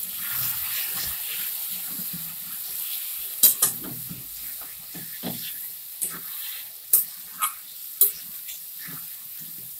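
Onion-tomato masala sizzling in a metal kadai while a metal spatula stirs and scrapes it, with several sharp clinks of the spatula against the pan. It is the masala being sautéed (kosha) in its own oil with a little water added.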